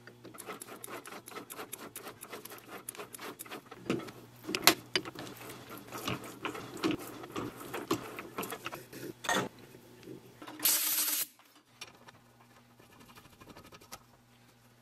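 Hand tools working a small steel hydraulic fitting that is being drilled out and tapped into a gauge adapter: a run of scraping and rasping with many sharp clicks and clinks. A short, loud hiss comes about eleven seconds in.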